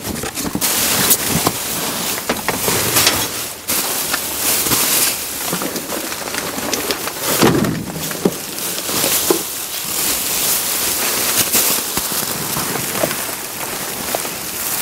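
Clear plastic garbage bags crinkling and rustling loudly as gloved hands dig through and shove them aside, with a cardboard box being handled at the start; a dense, continuous crackle full of sharp little snaps.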